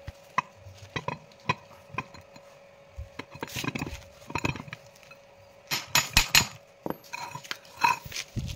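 Metal clinks and knocks of heavy steel parts, a pulley and a lathe chuck, being handled and set down on a steel plate, with a cluster of sharp clanks about six seconds in. A faint steady hum runs underneath.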